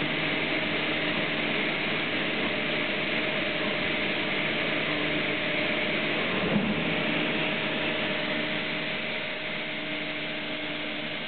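Multicam CNC router with a Braille-Oz braille attachment running: a steady hiss over a constant hum, with one brief knock about six and a half seconds in. The noise eases slightly near the end.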